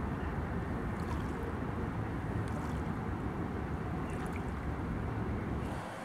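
Wind buffeting the microphone, a steady low rumble, over water lapping at the bank with a few faint small ticks.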